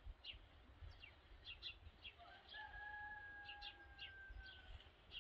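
Faint small birds chirping again and again, and about two seconds in a rooster crows once, one long drawn-out note held for about two and a half seconds.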